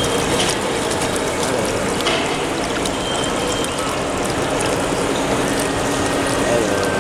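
Live-steam model sternwheeler steamboat running full ahead, its steam engine and stern paddle wheel turning and churning the water in a steady mechanical, watery noise.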